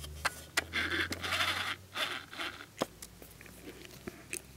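Hands handling a doll's vinyl jumper: rustling and rubbing of the vinyl with a few sharp light clicks, the rustle strongest about a second to two and a half seconds in.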